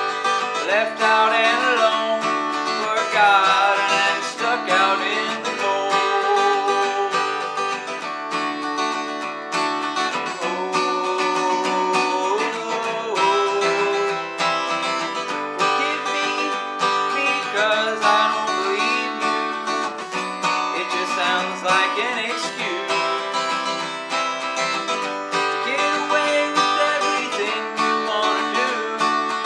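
Takamine acoustic guitar played steadily, chords changing every second or two with single-note bends in between.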